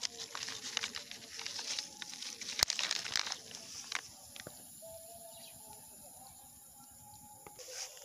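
Crumpled foil-plastic snack packets crinkling and rustling as they are handled in a hand, with one sharp click about two and a half seconds in. The crinkling dies away about halfway through.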